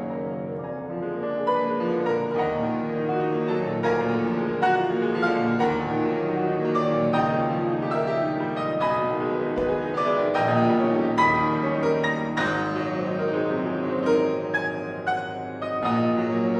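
Solo piano playing classical music: a dense flow of notes in several registers at once, with frequent fresh attacks, staying at an even, full loudness.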